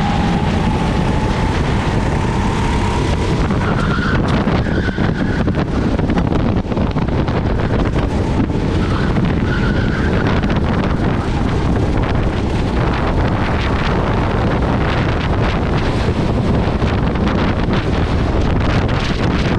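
Rental kart's engine running at racing speed, heard from onboard with wind buffeting the microphone.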